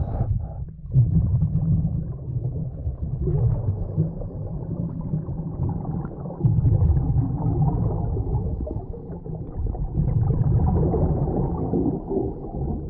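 Scuba diver's exhaled regulator bubbles, heard underwater as a low bubbling noise that swells in surges every few seconds with each breath out.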